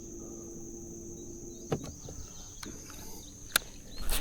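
Steady high-pitched insect chorus, with a few short sharp clicks.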